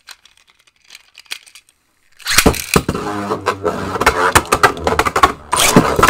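Two Beyblade Burst spinning tops launched into a plastic stadium about two seconds in, then whirring and grinding on the stadium floor with rapid sharp clacks as they strike each other and the wall. The tops have metal plates on their tips.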